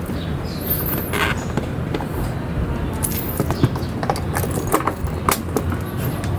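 A single-cylinder motorcycle engine idling with a steady low, rapidly pulsing rumble, while the charging port is tested. Several short clicks and taps are heard over it.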